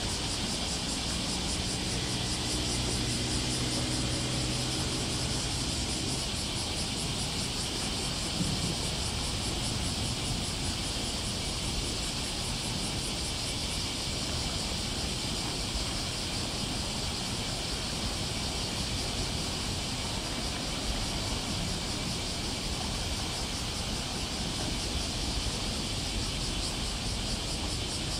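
Steady high shrill chorus of summer cicadas. For the first six seconds a low engine drone with several pitches sits underneath, and a low rumble runs throughout.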